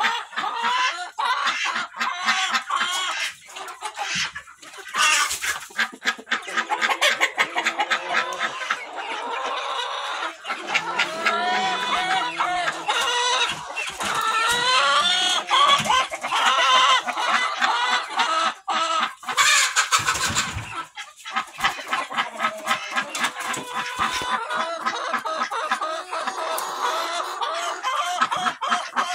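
A flock of chickens clucking and calling, many short calls overlapping continuously. A louder rustling thump stands out about twenty seconds in.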